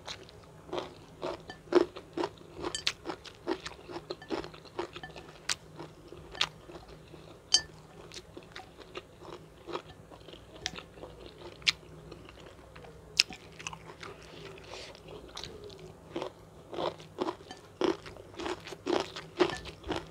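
Close-miked chewing with crisp, irregular crunches, about one or two a second and coming thicker near the end: a person eating a mouthful of rice, fried chicken and crushed chilli and long-bean sambal.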